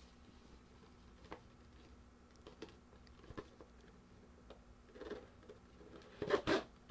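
Faint taps and light rustles of a small cardboard booster box being picked up and handled, with a louder burst of handling noise near the end.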